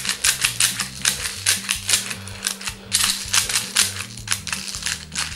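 Handheld BB speedloader being pumped to push 6 mm plastic BBs into an airsoft shotgun shell: rapid clicking, several clicks a second, as the BBs feed in one after another.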